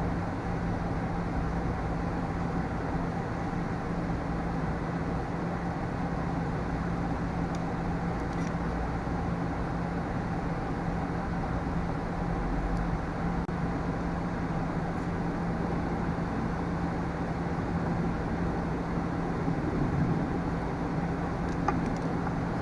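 Steady mechanical background hum with a low, even tone, and a few faint light clicks.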